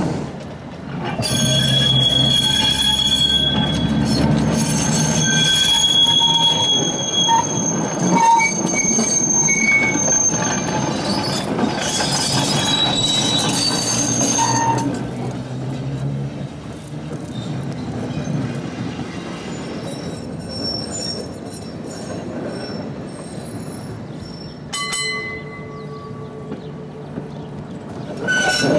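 Vintage electric trams running on the rails, their steel wheels squealing on tight curves over a low rumble. The high-pitched squeals come and go, strongest in the first half.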